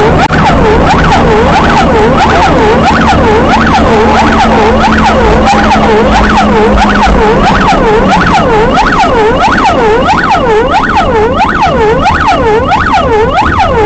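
An emergency vehicle's electronic siren sounds continuously and loudly, its pitch sweeping up and down about one and a half times a second, to make traffic give way on an emergency call. A steady engine drone runs underneath and shifts in pitch about eight seconds in.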